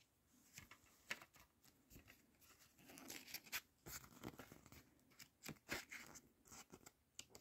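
Faint handling noises from an open plastic Wii game case and its paper manual: scattered small clicks and rustles.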